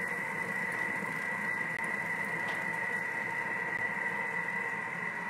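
Thermomix food processor running at speed 4, its motor giving a steady whine over an even rushing noise as it mixes butter and sugar for an almond cream.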